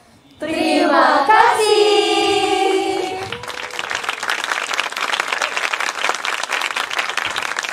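A group of women's voices sing out a short phrase together on long held notes for about three seconds. Then an audience applauds steadily.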